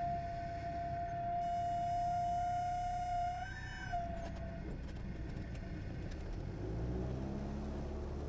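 Light aircraft piston engine heard from inside the cockpit during a touch-and-go ground roll. A steady high tone sounds over the cabin noise for the first four and a half seconds. From about six seconds in, the engine's pitch rises as power comes up for the takeoff.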